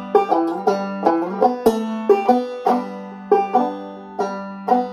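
Open-back five-string Gold Tone banjo in open G tuning (gDGBD), played clawhammer style through a quick turnaround phrase. A low open string drones under the picked notes, which come in a fast run at first and then settle to about two a second.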